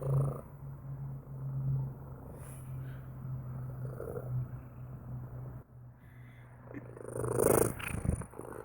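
Domestic cat purring steadily, a low pulsing purr that swells and fades with its breaths. About seven seconds in there is a louder, noisier swell.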